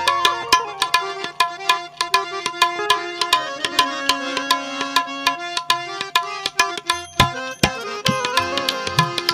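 Instrumental interlude of a santvani bhajan: tabla playing a fast, dense rhythm under a melody of held notes that step up and down over a steady low drone.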